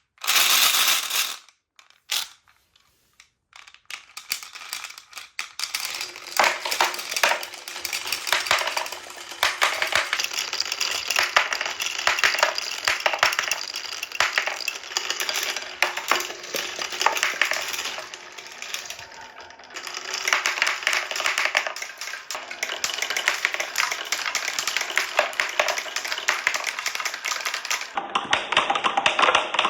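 Marbles rolling and clattering down a wooden marble run, a dense stream of rapid clicks and knocks of hard balls on wood.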